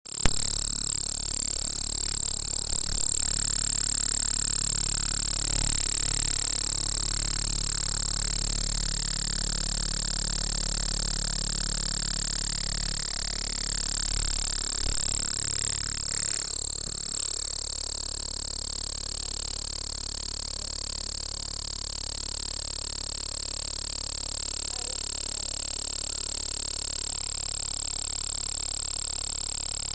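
Night-time insect chorus: a steady, unbroken high-pitched trill, with a faint lower background that thins out a little past halfway.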